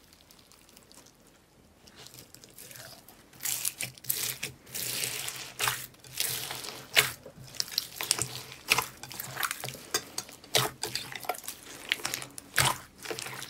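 Hands squeezing and kneading wet clear blue slime mixed with water beads in a glass bowl, making irregular squelching and popping sounds. It starts faint and builds about three seconds in into a quick run of wet clicks and crackles.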